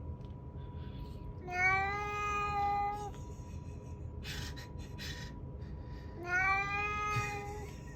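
Two long, drawn-out meow-like calls, each about a second and a half, rising slightly at the start and then held steady, the second coming about three seconds after the first. A faint steady high tone runs underneath.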